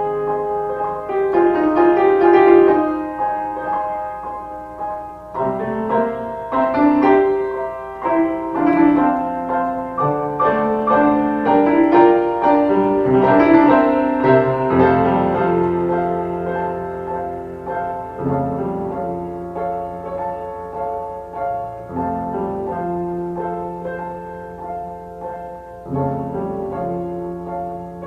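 Background instrumental music, a slow piano piece with sustained low notes under a moving melody.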